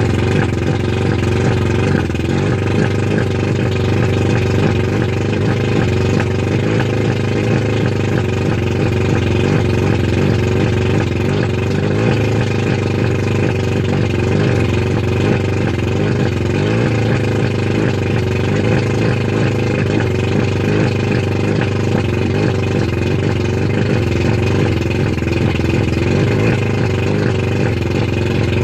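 1989 Mercury 100 two-stroke outboard engine running steadily at a fast idle of roughly 1200–1400 RPM, out of the water on its trailer and cooled by a garden hose.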